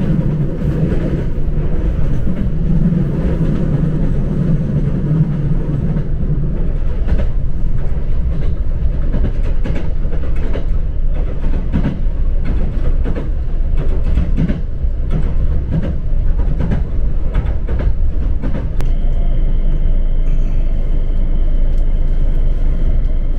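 Train running on the track, heard from inside the passenger car: a steady low rumble, with rail-joint clicks through the middle, and a thin high whine joining in the last few seconds.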